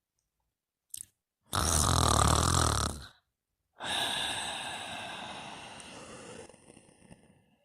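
A sleeper snoring: one loud snore lasting about a second and a half with a low rumble, then after a short pause a long breath out that slowly fades away.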